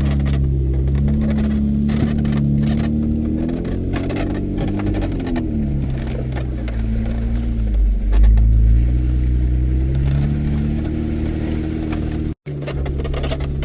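Off-road vehicle engine running under load on a rough trail, its pitch climbing and falling about four seconds in and surging again about eight seconds in, with scattered scrapes and knocks from the tyres and body. The sound cuts out for a moment near the end.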